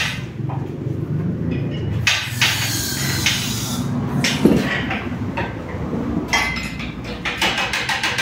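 Metal clanks and clinks as the removed engine, hung by straps from a shop crane's chain, is handled, over a steady low hum. A fast, even ticking starts near the end.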